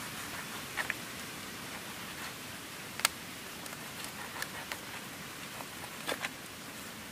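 Knife cutting and prying through a whole dried, salt-cured queen fish: a handful of short, sharp clicks and cracks scattered through, as the blade works through the stiff flesh, skin and bone, over a steady hiss.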